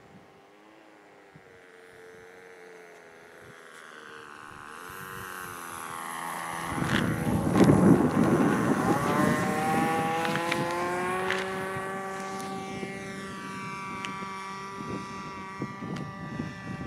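Small two-stroke .15 glow engine of a radio-controlled model airplane, throttled back and growing louder as it comes in. About seven seconds in, a loud rush of noise and a few knocks come as it touches down on a touch and go. The engine whine rises in pitch as it is throttled up, then holds steady and fades as the plane climbs away.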